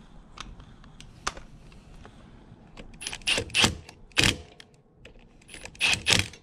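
Cordless power driver run in several short bursts on the sprocket bolts of a 125 cc Grom-clone motorcycle, starting about three seconds in, after a few light ticks of tool contact.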